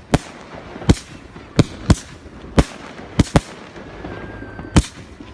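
Fireworks going off in a display: about eight sharp bangs at irregular intervals over a background of crackling. A faint whistle comes just before the last bang.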